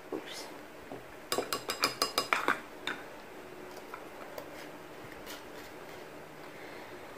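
Measuring spoon clinking against a ceramic mixing bowl: a quick run of about ten light ringing taps lasting just over a second, with a few single clicks around it.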